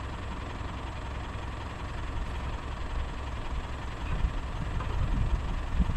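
A car on the move: steady engine and road rumble, heaviest in the low end, growing a little louder near the end.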